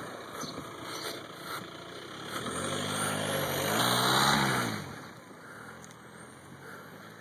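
A car passing close by: engine hum and tyre noise swell to a peak about four seconds in, then fade as it drives away.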